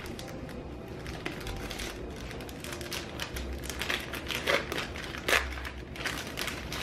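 A thin plastic pouch of sliced dried beef crinkling as hands pull it open and peel it apart, with irregular crackles throughout and a few louder rustles in the second half.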